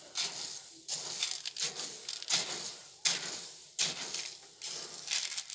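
Dark-roasting coffee beans stirred with a metal spoon in an aluminium pan, the beans rattling and scraping against the metal in irregular strokes, roughly one a second.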